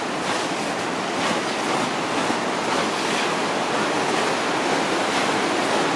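Waterfall in Johnston Canyon, a steady rush of falling water.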